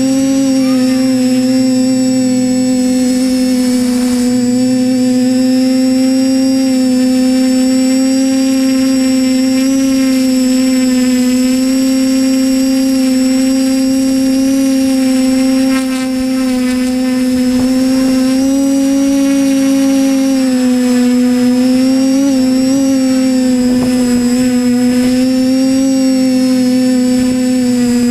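TBS Discovery Pro quadcopter's motors and propellers whining at a steady pitch, heard close up from the camera on the airframe, with a brief dip in loudness around the middle.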